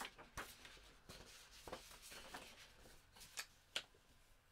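Faint rustles and a few light taps of cardstock and paper being handled, with one sharper tap near the end.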